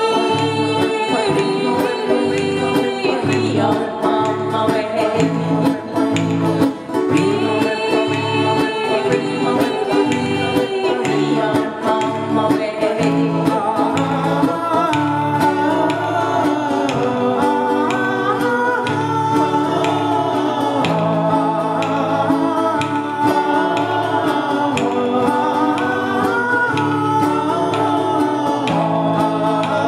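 Live music: acoustic guitars strummed together with several voices singing in unison and harmony.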